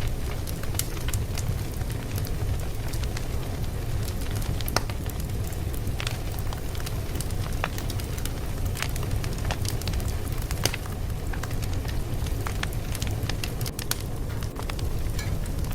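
Crackling fire: a steady low rumble of burning wood with scattered sharp pops and snaps, which come more often in the last few seconds.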